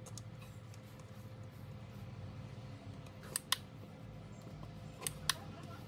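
Transformer soldering gun humming steadily with a low electrical buzz. Two pairs of sharp clicks come about three and a half seconds in and again about five seconds in.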